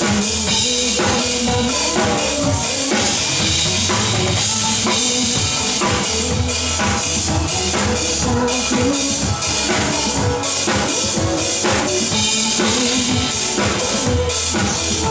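Drum kit played live along to a pop song's backing track, with kick drum, snare and cymbals keeping a steady beat over the recorded music.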